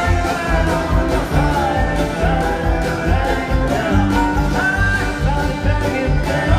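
A live band playing a country/bluegrass-flavoured rock song: acoustic guitar, upright bass and drums keep a steady beat while a melody line bends and slides above them. It is heard from the audience through a phone's microphone in a theater.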